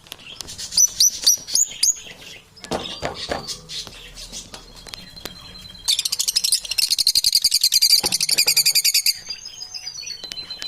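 Birds chirping in short high calls, then a long, very fast trill from about six seconds in that lasts about three seconds, with light clicks scattered throughout.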